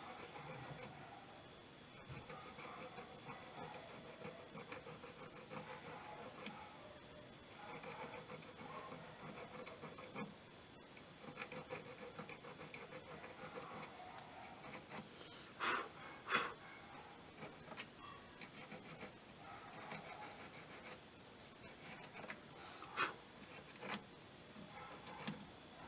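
Irregular rubbing and scraping by hand on an oxidized washing-machine part, with a few sharp clicks: two close together about halfway through and one more near the end.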